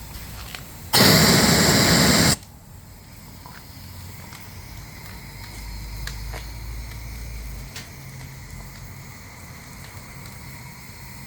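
A steam boiler under pressure lets out a loud burst of hissing steam for about a second and a half, starting and stopping abruptly as a valve is opened and shut, most likely the drain valve blowing down. After it comes a low steady rumble with a few faint ticks from the fired boiler.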